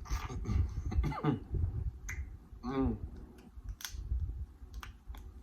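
Close-miked eating of seafood: wet chewing and lip-smacking clicks, with a couple of short hums about one and three seconds in.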